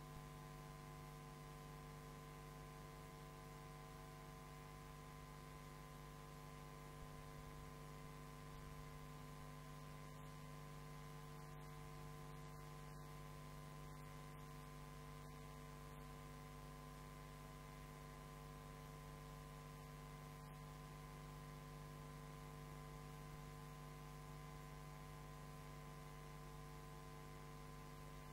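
Near silence with a steady electrical mains hum: a low drone with several higher steady tones above it, unchanging throughout.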